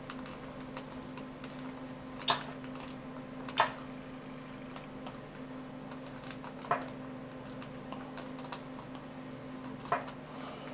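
Four sharp clicks, spaced one to three seconds apart, from computer input as the moves of a chess game are stepped through in chess software, over a steady low hum.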